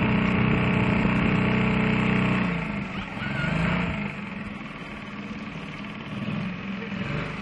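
A small boat's motor running steadily, then throttled back about two and a half seconds in, its pitch and loudness falling to a low idle.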